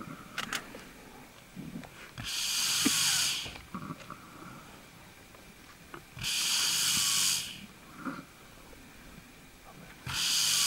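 Heavy hissing breaths of a buffalo bull being suffocated by lions, three of them, each about a second long, coming every four seconds or so, with faint low grunts in between.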